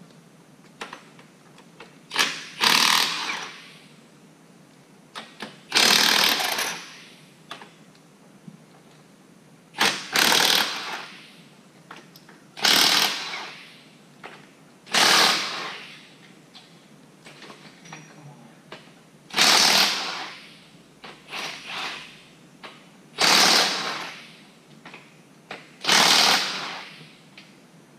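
Pneumatic impact wrench hammering in about eight short bursts, each a second or so long, a few seconds apart, run on bolts in the transmission case.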